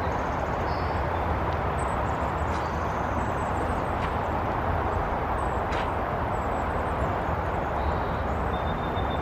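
Steady outdoor ambient noise, an even rushing hiss with no break, with a few faint high chirps scattered through it.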